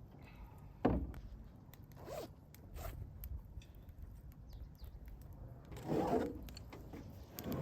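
A zipper being pulled, among rustling and handling of gear, with a sharp knock about a second in.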